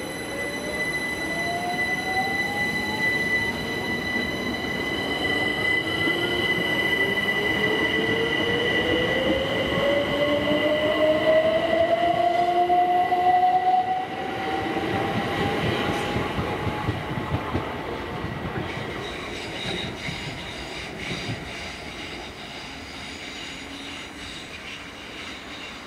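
Electric multiple-unit train accelerating: its traction motors whine in a pitch that rises slowly over about fifteen seconds, over a steady high whine and the noise of wheels on rail. It is loudest about halfway through, then fades as the train draws away.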